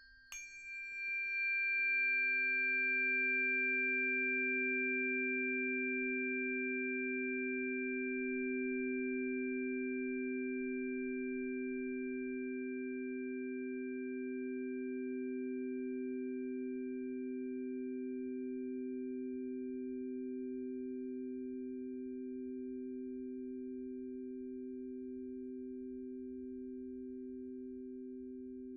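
Two singing bowls struck one after the other, then ringing on as two steady low tones with a slight wobble. The sound swells over the first couple of seconds and then fades very slowly, while the higher overtones die away sooner.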